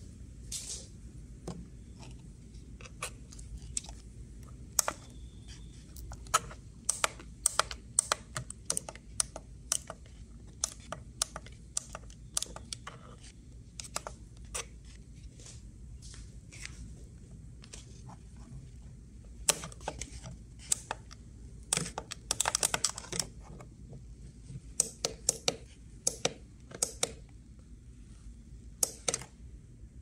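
Steady low rush of air and fan hum from a Trane ducted split air conditioner running, with many irregular sharp clicks and taps over it.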